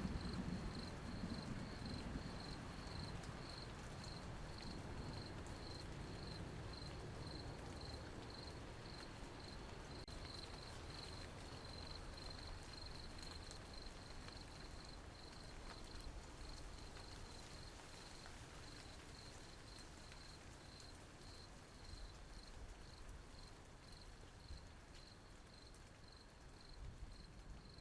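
Crickets chirping in a steady, even high-pitched pulse over a faint hiss of light rain. Low thunder rumbles away and fades in the first couple of seconds.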